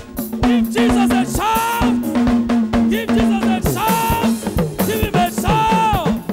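Upbeat music played on a drum kit keeping a busy beat, with held bass notes and a higher melody line that bends up and down above them.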